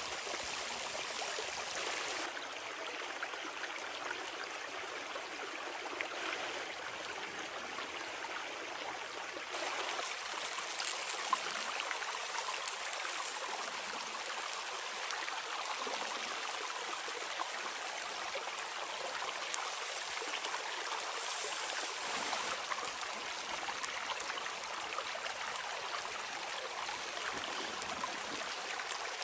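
Steady rushing and trickling of running water, with a few faint clicks.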